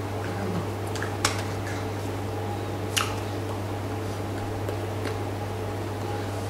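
Steady low hum with two sharp slaps of hands striking together during sign language, about a second and a half apart.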